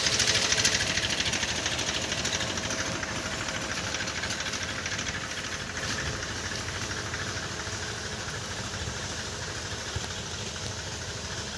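Small engines of motorized backpack sprayers running steadily as they spray a wheat crop, growing gradually fainter.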